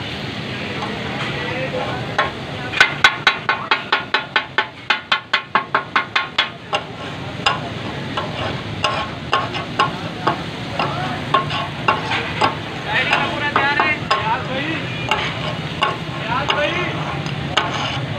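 Kata-kat (tak-a-tak) being made: steel spatula blades chopping and tossing meat on a large round griddle, with sizzling underneath. A fast run of sharp metal clacks, about five a second, runs from about three to seven seconds in, followed by slower, irregular strikes.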